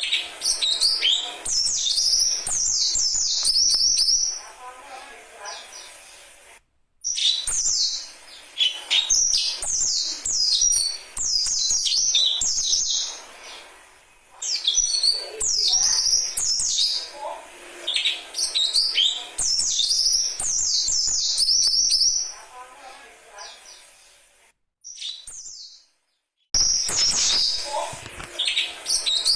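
White-breasted waterhen chicks calling: rapid clusters of short, high-pitched chirps that come in bursts every couple of seconds, with fainter lower calls beneath. The sound cuts out briefly twice.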